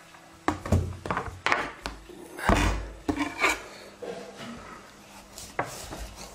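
Kitchen knife scraping and cutting into the hard skin of a butternut squash on a plastic cutting board. There is a run of knocks and scrapes as the squash is handled, with one heavy thump about two and a half seconds in, then quieter scraping.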